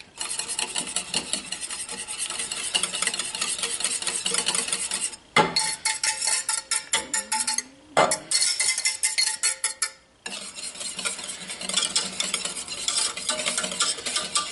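Wire whisk beating fast against the inside of a stainless steel saucepan, whisking cream into a thick roux-based white sauce, a rapid metallic scraping and clicking with three short pauses.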